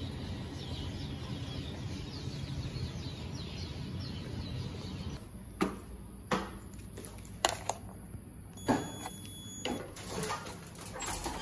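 Birds chirping over steady outdoor background noise for about five seconds. Then a run of sharp knocks and clicks, as of footsteps and a door, with a steady high tone for about a second near the end.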